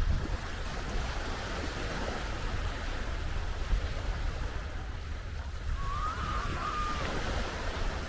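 Sea waves washing onto a sandy beach, with wind buffeting the microphone in a low rumble. A brief, wavering high tone sounds about six seconds in.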